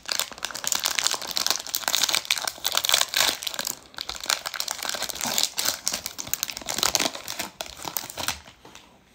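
A baseball card pack's foil wrapper being torn open and crinkled by hand: a dense crackling rustle that dies away near the end.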